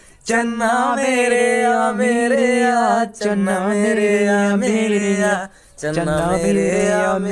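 A man singing a slow Hindi song into a microphone without accompaniment: long, wavering held notes in three phrases, with short breaks about three seconds in and again near six seconds.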